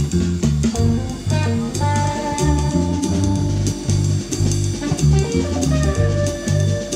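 Band music with electric bass guitar, electric guitar and a drum kit playing: a pulsing bass line under drum hits, with held guitar notes above.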